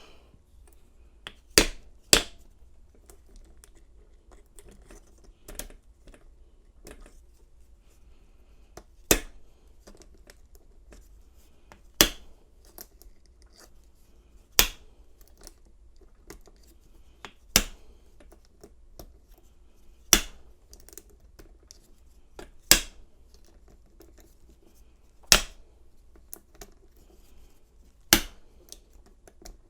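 A bump key in a Master Lock No. 220 padlock being struck over and over, about ten sharp taps spaced two to three seconds apart, with faint clicks and scraping of the key being reset and turned between strikes. The lock has not yet opened.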